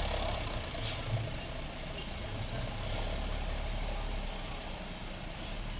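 Heavy vehicle's engine running steadily, with a short hiss about a second in. No horn sounds.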